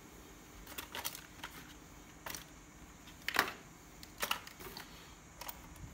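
Toy packaging being handled during unboxing: scattered light clicks and short rustles of box and plastic, the loudest about three and a half seconds in.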